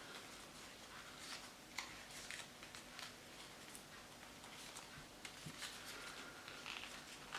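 Faint, scattered rustling and crackling of a sheet of copy paper being handled and folded by hand.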